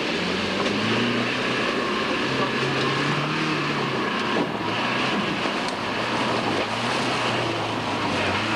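Range Rover's engine revving under load as the 4x4 climbs through mud, its pitch rising and falling with the throttle.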